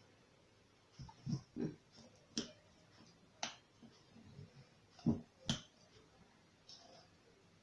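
Irregular light clicks and soft knocks, about a dozen, some dull and a few sharper, of kitchen utensils and containers being handled while a herb-and-honey remedy is prepared.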